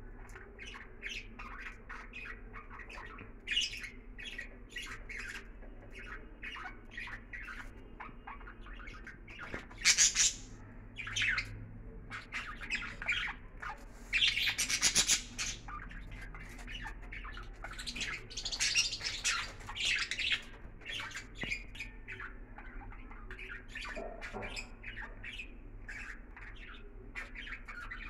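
Budgerigars chattering with many short chirps, broken by several louder, rasping squawks in the middle.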